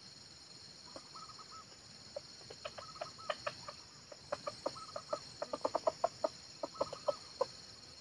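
Red junglefowl clucking. Scattered short clucks give way to a rapid run of them from about four seconds in until near the end, with brief trilling calls in between, over a steady high-pitched buzz.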